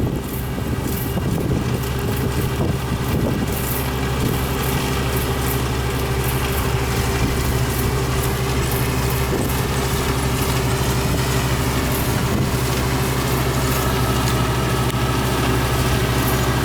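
Yanmar farm machine's engine running steadily at an even speed, with a constant low hum.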